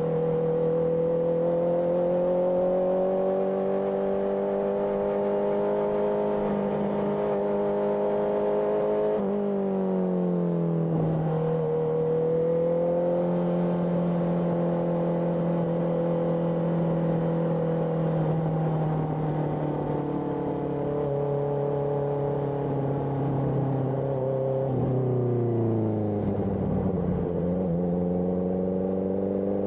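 Honda CBR650R inline-four with an IXIL IXRACE aftermarket exhaust under way. The engine note holds and climbs slowly, then falls sharply twice, about a third of the way in and again near the end, before building again.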